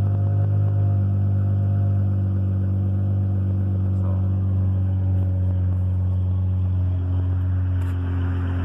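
Dodge car's engine idling steadily through a true dual exhaust with Flowmaster 44 Delta mufflers, running on the remote starter.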